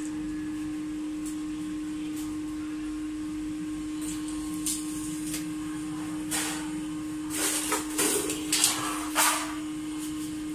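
Steady electrical hum in a metal workshop, with several short, harsh bursts of noise in the second half as the galvanized sheet and a corded hand tool are handled.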